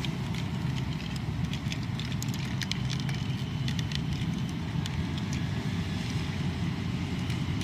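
Hard plastic parts of a Tobot Titan transforming robot toy clicking as its arms are twisted and pressed into place to fold it into car mode. The clicks are scattered, over a steady low rumble.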